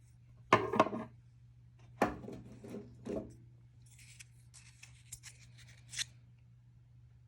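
Small metal driver bits and adapters of a Leatherman bit kit being handled on a table: a few knocks and clicks in the first three seconds, then lighter scratchy rubbing and a sharp click about six seconds in.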